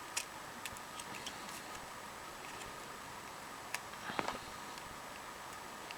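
A few faint, irregular light clicks and taps from the plastic parts of a partly disassembled phone being handled, with a small cluster about four seconds in, over faint steady background noise.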